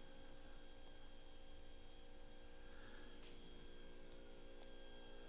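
Near silence: quiet room tone with a steady electrical hum and one faint click about three seconds in.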